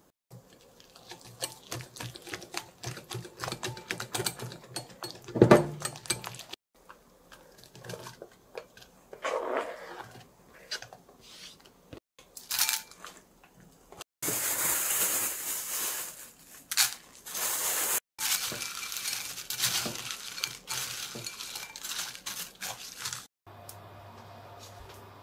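Kitchen prep in short cuts: a utensil clinking and scraping against a glass mixing bowl as a batter of new onion, garlic chives and cheese is mixed, with one loud knock about five seconds in. Near the end, a faint steady low hum as an oiled frying pan sits on the cooktop.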